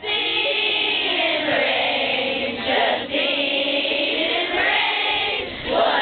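A group of voices singing together, several voices overlapping, with two short breaks.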